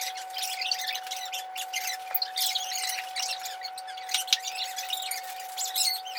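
Many small birds chirping rapidly and continuously, with a faint steady hum underneath.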